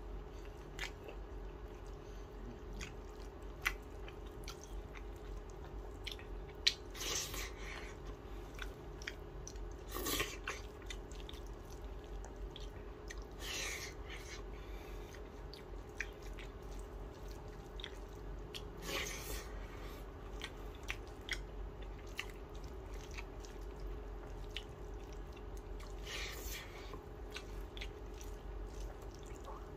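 A person eating rice and dal with fried chicken sausage by hand: chewing and wet mouth sounds with many small clicks, and a few short, louder smacking noises spread through. A steady low hum runs underneath.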